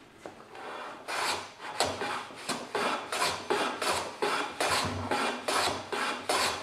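Hand plane pushed on its side along a shooting board, shaving the end grain of a cutting-board blank: short, even scraping strokes, about three a second, starting about a second in.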